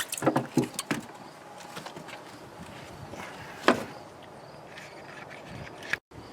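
Car jack and tire tools being handled: several quick metallic clicks and knocks, then a quieter stretch of handling noise and one sharp knock about halfway through.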